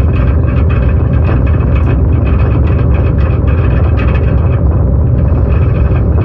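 Wind buffeting the microphone on the open deck of a car ferry under way, over a steady low rumble from the ship and the sea. The noise is loud and flutters unevenly throughout.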